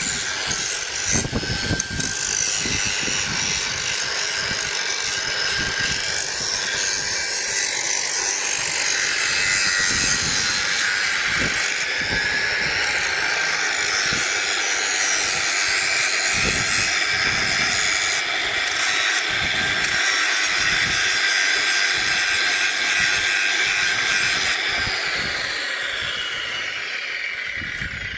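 Angle grinder cutting a long piece to length: a steady high whine over a loud hiss, the pitch wavering as the disc is pushed into the cut. Near the end it is let off and the disc winds down with a falling pitch.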